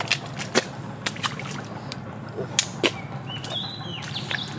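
Sharp clicks, snaps and squelches of hands and bare feet working through wet mangrove mud and roots while picking up sea snails. A rooster starts crowing near the end.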